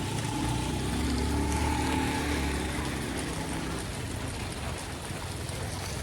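Floodwater rushing steadily through a street drain in heavy rain, with a motor engine passing by in the first half and then fading.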